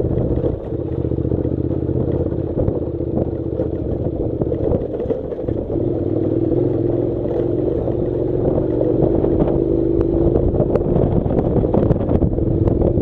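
Honda NC700's parallel-twin engine running at steady low revs while the motorcycle rides over a rocky gravel track, with many short clicks and clatters from stones under the tyres and the bike's parts rattling.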